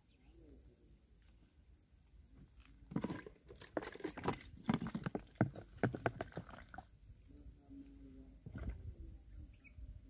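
Close-up handling noise: a run of rustles and sharp clicks lasting about four seconds, starting about three seconds in, with another short cluster of clicks near the end.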